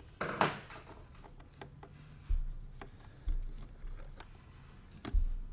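Hands working with steering wheel buttons and trim pieces: scattered light clicks, a short scrape near the start, and three dull bumps.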